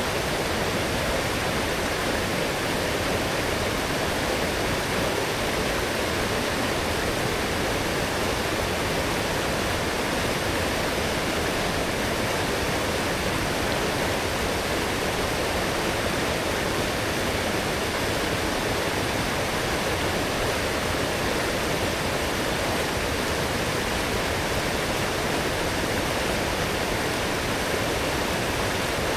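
A fast forest stream running full after heavy rain, its water rushing and splashing in a steady, unbroken flow.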